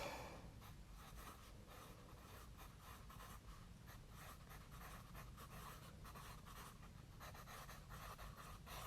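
Faint, irregular light scratching and rustling from trading cards and their packaging being handled on a table, close to near silence.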